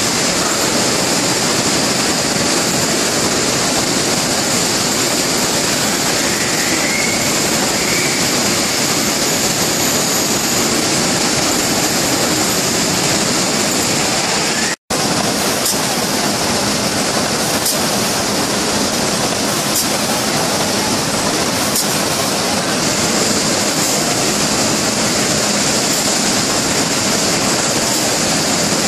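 Steady din of pouch-packaging line machinery and conveyors running, a dense, loud hiss. It cuts out for an instant about fifteen seconds in, then carries on with faint clicks about every two seconds.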